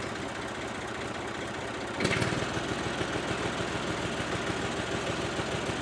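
Massey Ferguson 35 diesel tractor engine running with a steady pulsing beat. About two seconds in it turns suddenly louder and fuller, and stays so.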